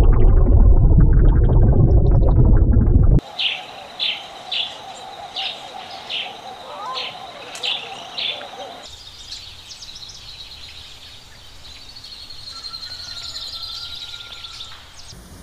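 A loud low rumble for about three seconds that cuts off suddenly. Then a bird repeats a short high chirp about every 0.6 seconds, nine or so times, followed by fainter, thinner high bird song.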